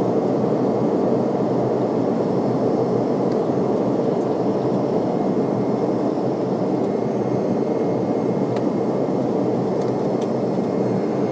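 Jet airliner engine and airflow noise heard inside the passenger cabin: a steady, even rush with no change in level. Two faint ticks come near the end.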